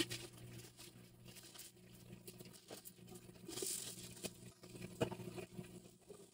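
Faint handling noise from unboxing a protein skimmer: scattered light clicks and taps of plastic parts, with a brief rustle of packaging a little past halfway.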